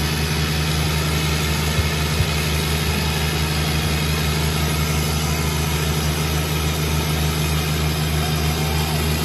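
Two diesel tractor engines, a John Deere 5050D and a New Holland 3630, running hard under full load in a tug-of-war pull, a steady low drone that holds one pitch.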